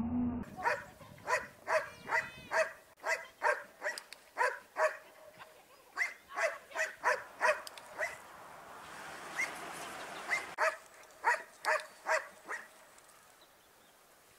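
Small dog barking in quick runs of short, sharp barks, two or three a second, with a pause of a couple of seconds in the middle before a last run that stops shortly before the end.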